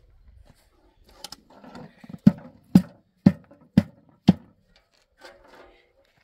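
Five sharp knocks in a steady rhythm, about two a second, with fainter scraping and handling sounds before and after.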